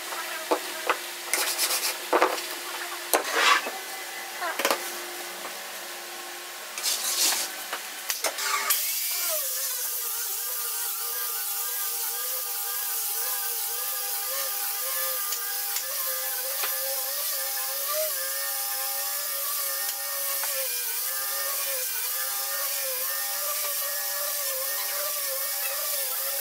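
A few knocks and clicks as the angle grinder and its wooden sled jig are handled. About nine seconds in, a Makita angle grinder with a sanding disc starts and runs steadily while sanding a hardwood board. Its whine wavers in pitch as the load on the disc changes.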